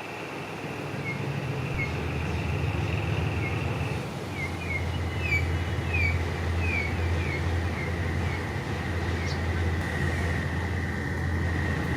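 Diesel locomotive running close by, its low engine drone building from about two seconds in. A steady high squeal runs over it, with a quick series of short falling chirps between about four and seven seconds.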